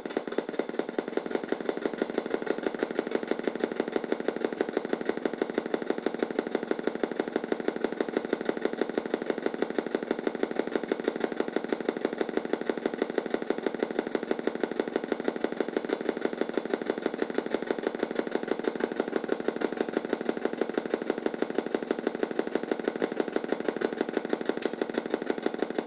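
Homemade NAND-gate square-wave oscillator synth buzzing steadily through its own small speaker, a raspy, unchanging drone that pulses rapidly and evenly.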